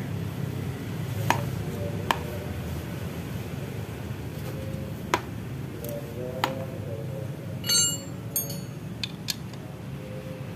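Sharp metallic clicks and taps every second or so, with a short ringing clink of steel a little after the middle, as small engine parts and tools are handled while a motorcycle engine's top end is being dismantled. A steady low hum runs underneath.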